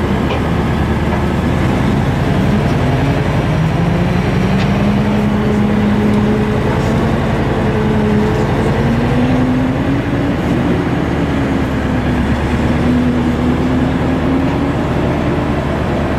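Engine of a moving tour vehicle running steadily, its hum rising and falling slowly in pitch over a constant rushing noise.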